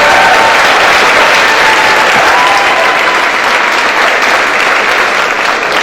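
Audience applauding, a sustained round of clapping with a couple of faint cheers early on, easing slightly near the end.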